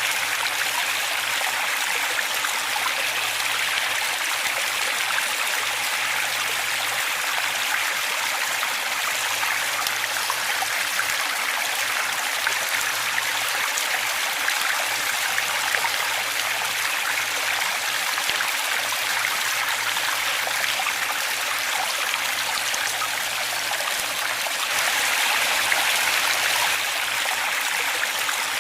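Waterfall water rushing and splashing in a steady, even stream, swelling a little louder for a couple of seconds near the end.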